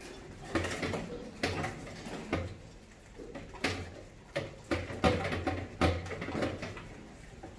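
Mice scrambling over a glass tank trap and the aluminium drink cans laid across its top, with about eight hollow knocks and thuds at uneven intervals, some close together.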